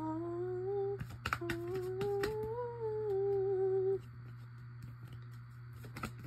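A woman humming a wavering tune for about four seconds, breaking off briefly about a second in, with light clicks over it. A steady low hum carries on underneath after the humming stops.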